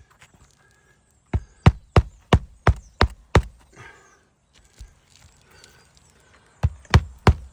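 Hammer driving roofing nails to fasten a new 3-tab asphalt shingle: a run of seven quick strikes about three a second, a pause with light scraping, then another quick run of strikes near the end.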